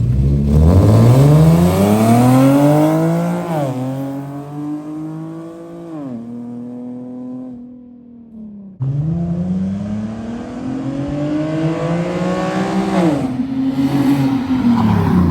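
Infiniti G37's 3.7-litre V6, fitted with aftermarket cold air intakes, rising in pitch for several seconds and then dropping sharply. This happens twice, with a sudden cut about nine seconds in.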